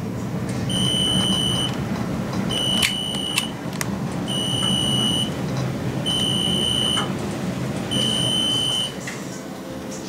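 Old Otis elevator car travelling in its hoistway with a steady low rumble, a few clicks about three seconds in. Over it, an electronic beeper sounds five times, each high beep about a second long, repeating roughly every second and three-quarters.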